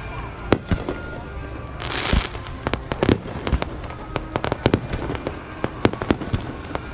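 Fireworks display: a run of sharp bangs from bursting shells, coming thicker in the second half, with a brief hiss about two seconds in.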